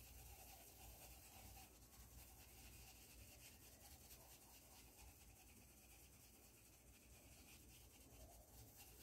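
Near silence, with faint rubbing of a paintbrush working acrylic paint into cotton cloth.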